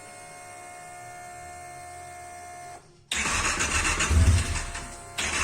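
A faint steady whine, then about three seconds in the engine of a Stels Viking V800 snowmobile starts and runs, revved up about a second later and again near the end. It is being checked for a knock that the owner hears as the revs rise.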